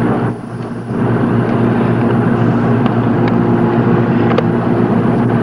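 A machine running steadily, a level drone with a few steady low tones under a noisy hiss, setting in about a second in, with a couple of faint clicks.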